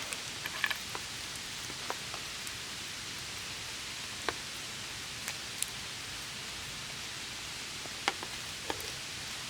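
Small campfire crackling: a steady hiss with scattered sharp pops every second or so.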